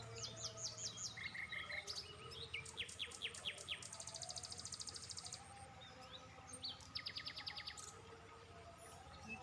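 Small birds calling: several runs of quick, high, falling chirps, with a fast high trill about four seconds in.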